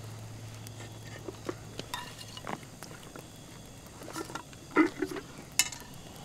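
Scattered light clinks and taps of metal camp dishes: cups, pots and spoons handled while eating. The loudest come about five seconds in. A low held tone fades out over the first second or so.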